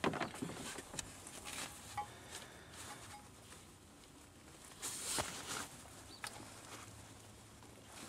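Hands working a spark plug wire and boot down among an engine's hoses and wiring loom: scattered faint clicks and rustling, with a louder rustle about five seconds in.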